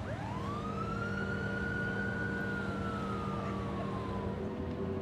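A single siren wail: the pitch climbs quickly, holds high for about two seconds, then slowly sinks away, over a steady low hum.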